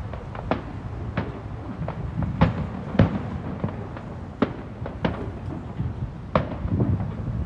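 Aerial fireworks bursting: about a dozen bangs at irregular intervals, a fraction of a second to about a second apart, some much louder than others.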